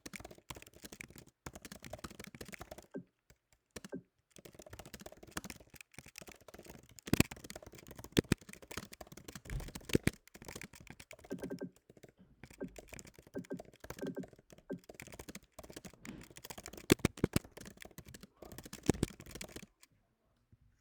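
Fast typing on a computer keyboard at around 100 words per minute: a dense run of key clicks with a few louder strokes, a short pause about three seconds in, and the typing stopping just before the end.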